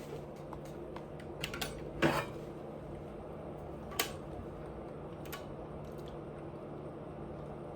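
Eating utensils and dishes clinking and knocking during a meal: a few sharp clicks, the loudest about two seconds in and another near the middle, over a steady low hum.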